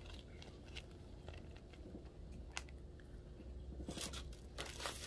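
Scattered small clicks and taps of items being handled, then from about four seconds in a louder rustling and crinkling of packaging as something is taken out of a box.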